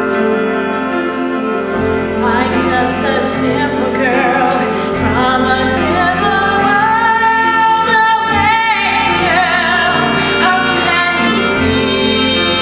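A woman singing a solo song over instrumental accompaniment. Her voice comes in about two seconds in, over sustained chords, and she holds a note with vibrato a little past the middle.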